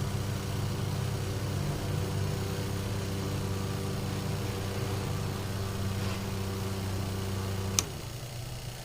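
Air cooler's electric motor running with a steady mains hum. It stops abruptly with a sharp click near the end, as it is switched off.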